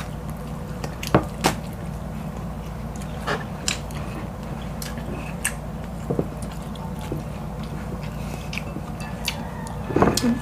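Eating with bare hands: scattered small clicks and taps as fingers pick through rice, hot dog and fish on plates and in a glass bowl, over a steady low hum.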